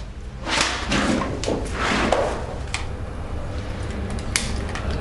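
Handling sounds at an electrical switchboard: rustling movement, then two sharp plastic clicks as a lockout device is fitted to a circuit breaker to isolate the circuit, over a steady low hum.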